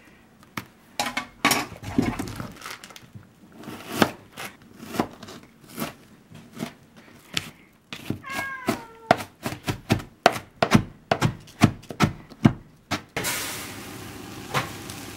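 Kitchen knife chopping onion on a plastic cutting board, a long run of sharp knocks that quickens towards the end. A cat meows once, briefly, about eight seconds in. Near the end, vegetables and butter tipped into a hot wok start sizzling.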